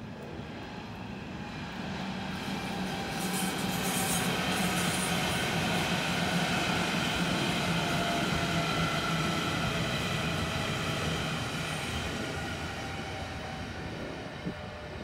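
A Berlin S-Bahn electric multiple-unit train passing, swelling over the first few seconds, holding, then fading away, with a steady whine running over the rumble of its wheels on the rails.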